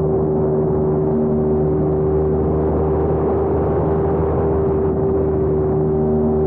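Electric motor and rotor of a YU XIANG F119S MD500-style RC helicopter heard from inside its fuselage: a steady whirring hum with a fixed pitch, as the heli holds its speed in flight.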